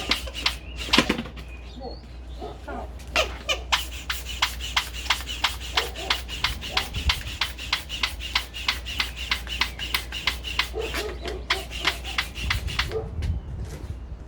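Small hand/foot air pump inflating a Bosu balance trainer: a fast, even run of pump strokes, about three or four a second, each a short puff of air, starting about three seconds in after some irregular handling noise.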